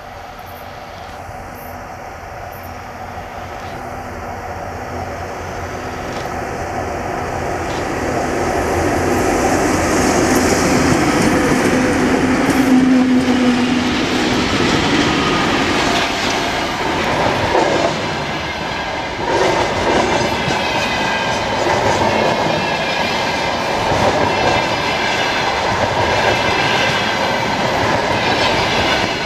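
VL11M electric freight locomotive approaching and passing at speed, growing steadily louder over the first ten seconds, then a long string of loaded freight wagons rolling past with wheels clattering over the rail joints.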